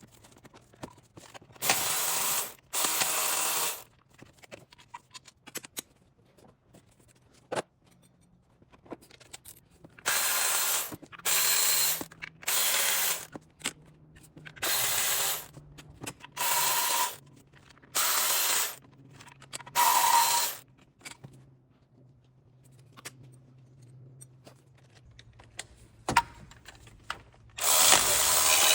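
Power tool spinning out the water pump's bolts in short runs of about a second each, around ten times, with small metallic clinks between runs. A longer continuous run starts near the end.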